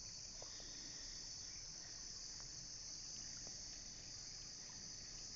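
Steady high-pitched chorus of night insects, with a few faint scattered ticks.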